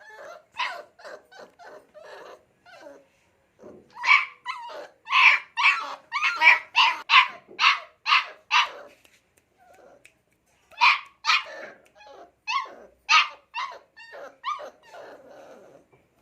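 Pit bull puppy barking in short, sharp yaps: a quick run of about ten barks, a pause of about a second, then another run of barks.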